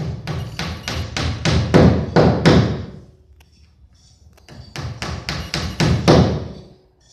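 Hammering: two runs of rapid, even blows, about four a second, each blow ringing briefly, with a pause of over a second between the runs.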